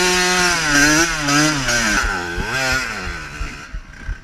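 Cagiva W8 125's two-stroke engine revving hard, its pitch rising and falling several times as the rear wheel spins and throws dirt on a slippery snowy slope; it gets quieter near the end.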